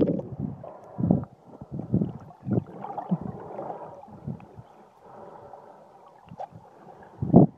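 Muffled underwater sloshing and gurgling of seawater against a submerged phone's waterproof case, with irregular low thumps, the loudest near the start and near the end.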